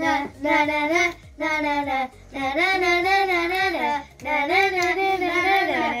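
A boy singing a song in four long phrases, with short breaths between them.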